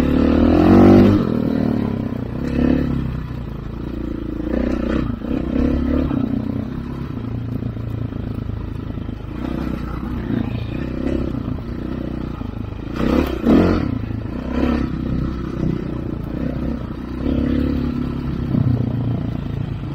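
Dirt bike engine running, its pitch rising and falling with the throttle, with the bike rattling and clattering over bumps, loudest about thirteen seconds in.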